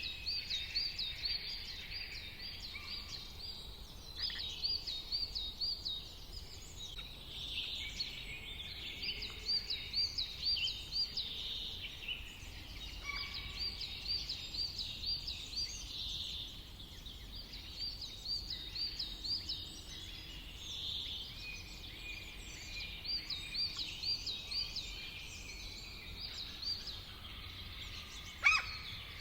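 Several birds singing outdoors: one repeats a quick run of high, evenly spaced notes in short bouts every few seconds, while others call and chirp more softly underneath. One louder, sharp call stands out near the end.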